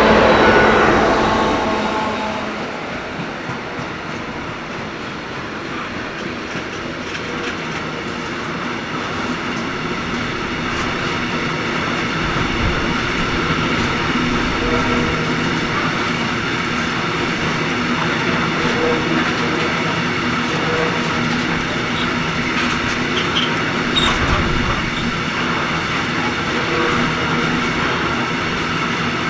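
Heavy freight train of loaded sand and gravel wagons rolling past. A Class 241 'Ludmilla' diesel locomotive's loud engine sound fades away over the first couple of seconds, then the steady running noise of the wagons' wheels on the rails carries on, with high ringing tones.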